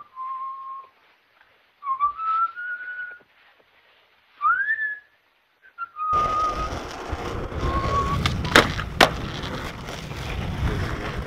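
A person whistling a few short notes, one a quick upward glide. About six seconds in, skateboard wheels start rolling on rough pavement, with two sharp clacks of the board soon after.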